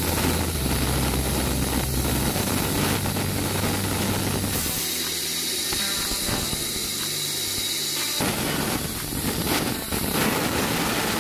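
Large timber band saw running while a thick bark-edged wood slab is fed through its blade: a steady mechanical noise with hiss over a low motor hum. For a few seconds in the middle the hum drops away and the hiss gets brighter.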